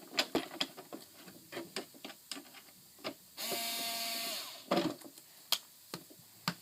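Plastic parts of a robotic pool cleaner clicking and knocking as it is handled, with a power screwdriver whirring for about a second midway while the side-cover screws are backed out.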